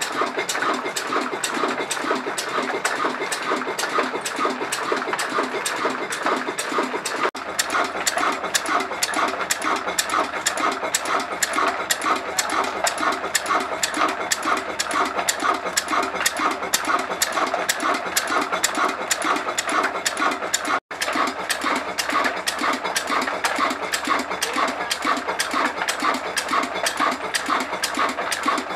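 Old Ruston Hornsby single-cylinder diesel engine running steadily, with a fast, even knocking beat from each stroke. The sound breaks off for an instant about two-thirds of the way through.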